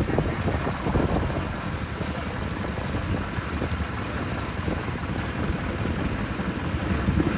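Engine of rice-harvesting farm machinery running steadily, with wind buffeting the microphone.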